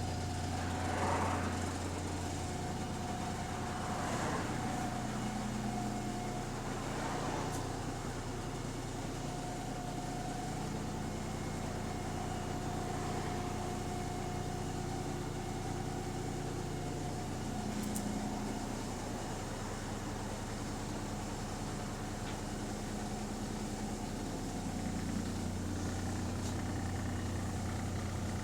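Double-decker bus's diesel engine running steadily, heard from inside the bus, with a steady high whine over the low engine note. The engine note shifts a few seconds in and settles back near the end.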